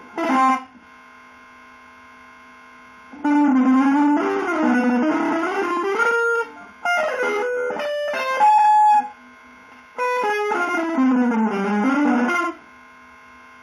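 Electric guitar playing smooth, gliding legato phrases with effects, in three runs. Between the runs a single low note is held, quieter.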